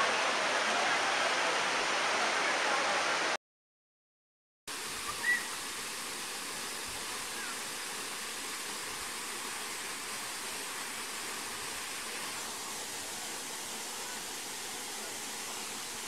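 Steady rushing of a waterfall, an even hiss of falling water. It cuts to silence for about a second just after three seconds in, then resumes a little quieter, with one short high chirp soon after.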